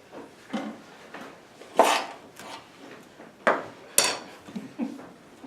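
Knocks and clacks of a magic illusion box being handled and turned over a volunteer's head, three sharper bangs among lighter clicks.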